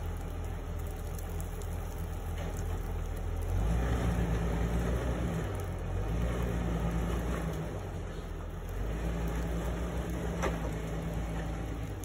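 A Jeep Wrangler LJ's 4.0-litre inline-six engine working under load as the Jeep climbs a rocky ledge. The engine gets louder as throttle comes on about a third of the way in, eases off briefly past the middle, then pulls again. A single sharp knock comes near the end.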